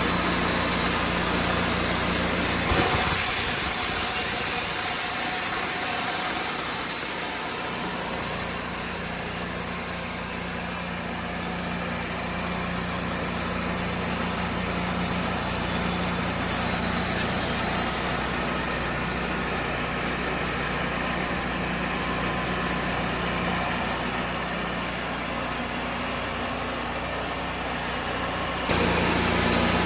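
An engine running steadily with a constant hum, the sound changing abruptly about three seconds in and again near the end.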